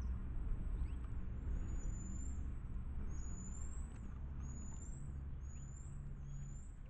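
Steady low rumble with a series of about five high, thin whistled calls, each sweeping in pitch, starting about a second and a half in.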